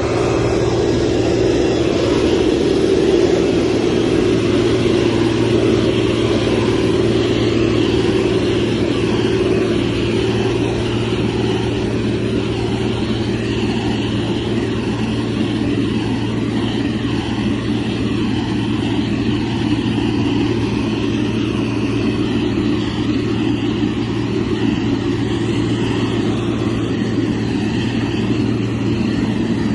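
Diesel engine of a motor grader running steadily at working speed, with a constant low hum and the mechanical noise of the machine.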